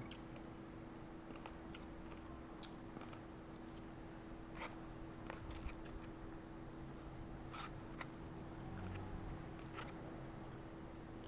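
Sparse light clicks and taps of eating utensils against a noodle bowl, over a steady low hum.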